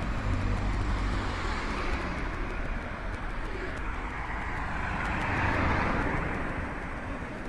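Cars driving past one after another on the road, engine and tyre noise rising and falling, with the loudest pass about five to six seconds in.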